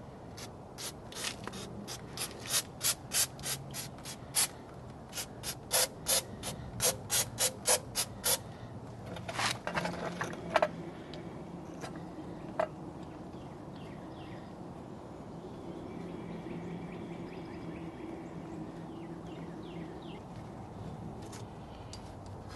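A quick run of short rasping strokes, about three a second for some eight seconds, as the brake caliper is cleaned. A few scattered clicks of tools against the caliper follow, then a faint steady hum.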